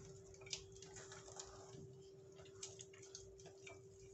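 Faint, irregular clicks and scrapes of a spatula stirring thick glutinous rice flour batter in a stainless steel bowl, over a steady faint hum.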